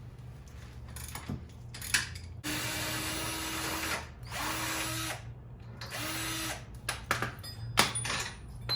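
Power drill, not an impact gun, run in three bursts to spin out a lower control arm bolt: one of about a second and a half, then two shorter ones. Sharp metallic clicks and knocks come between and after the runs.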